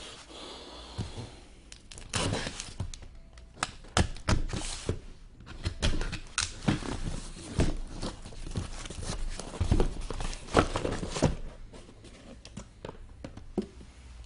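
Cardboard card boxes being handled and opened: irregular knocks and thunks of boxes set down, with tape or cardboard tearing and packaging crinkling.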